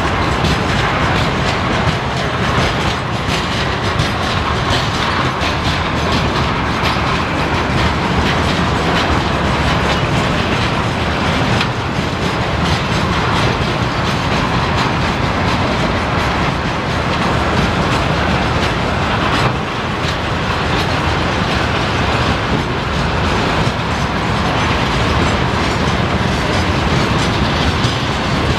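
A freight train of railway tank cars rolling past close by: a steady rumble of wheels on rail, with the clickety-clack of the wheels over the rail joints.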